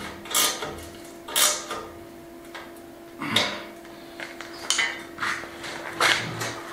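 The steel lid of a smoker built from a gas bottle is lifted and worked on its bent-strap hinges: a series of separate metal knocks and scrapes, roughly one a second, the loudest a little over three seconds in, over a faint steady hum.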